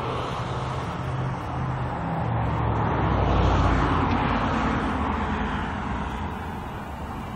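A vehicle passing by: a rush of engine and motion noise with a low hum swells to a peak about halfway through, then slowly fades.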